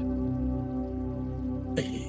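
Calm new-age background music of sustained, ringing crystal singing bowl tones, with a brief hiss near the end.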